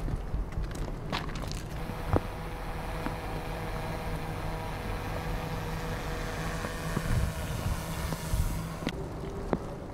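A train's locomotive running steadily: a low hum with a few steady tones above it. Scattered footsteps and knocks on the track ballast sound over it, the sharpest about two seconds in.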